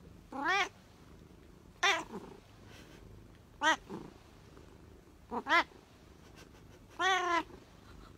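Domestic cat meowing five times, short calls each rising then falling in pitch, the last one longer.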